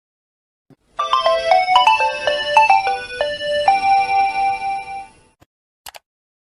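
A mobile phone ringtone: a quick melody of short notes stepping up and down, ending on one long held note that then stops. A faint click comes just before it and another shortly after.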